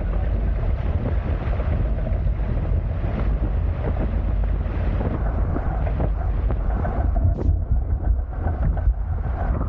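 Wind buffeting the camera microphone in a heavy, gusty rumble, over the steady rush of water along the hulls of a Hobie Tiger F18 catamaran under sail.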